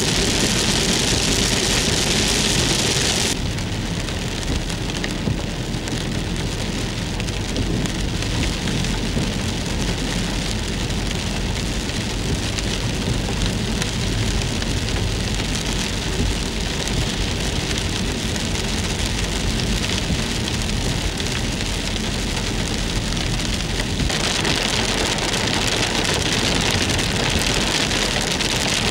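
Heavy rain pouring down as a dense, steady hiss over a low rumble. The hiss eases a little about three seconds in and comes back strong near the end.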